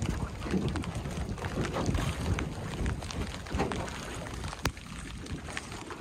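Wind buffeting the microphone and water splashing along the hull of a Scamp 12 sailboat under way, in irregular surges. A single sharp click sounds about two-thirds of the way through.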